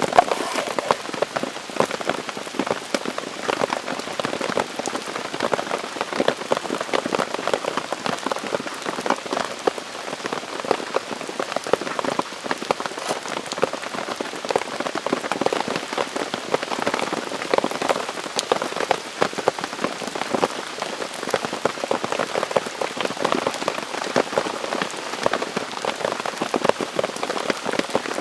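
Steady rain falling, a dense, even stream of drops striking a surface.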